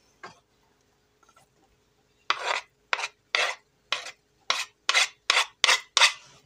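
Chopped ham and scallions scraped off a wooden cutting board into a frying pan: about a dozen short rasping scrapes across the board, starting about two seconds in and coming faster toward the end.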